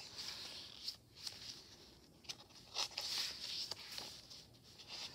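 Paper pages of a handmade journal rustling and sliding as they are handled and turned over, with a few small clicks; the rustle is loudest about three seconds in.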